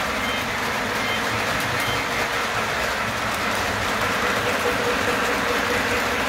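Model freight train running on the layout's track: a steady running noise of wheels and motors.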